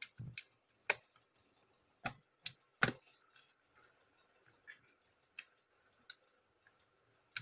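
Irregular sharp clicks and knocks as a battery is fitted to a Dell Inspiron 3000-series laptop and pressed home, the loudest a little under three seconds in.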